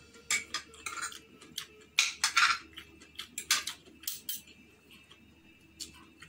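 Metal spoon and fork clinking and scraping against a plate of rice: a quick run of sharp clinks with one longer scrape about two seconds in, then only a stray click or two.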